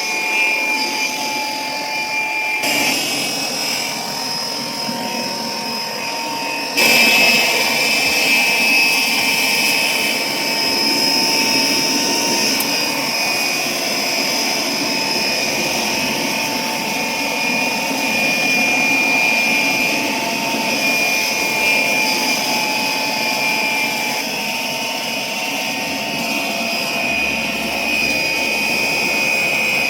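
Air blower running steadily, a whine over rushing air, which gets suddenly louder about seven seconds in.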